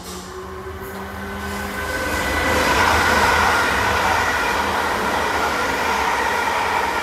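Train running past, getting louder about two seconds in and staying loud, with a rumble under a high steady ring.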